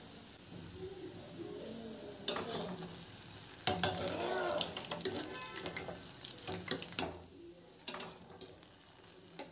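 Hot oil sizzling as freshly fried gulab jamuns are lifted out and slid into hot sugar syrup, with several clinks of a wire spider strainer against the steel pot.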